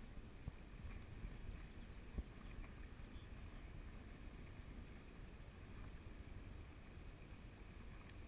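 Faint low rumble of wind and water around a fishing boat, with a few soft knocks, the loudest about two seconds in.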